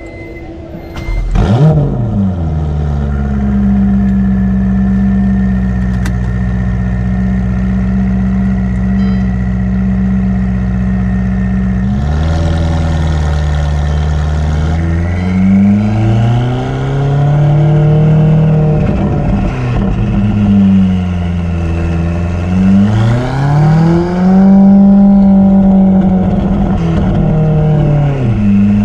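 Ferrari F8's twin-turbo V8 starting about a second and a half in with a sharp flare, settling into a steady idle, then revved twice, the note rising and falling over a few seconds each time, with a smaller blip near the end.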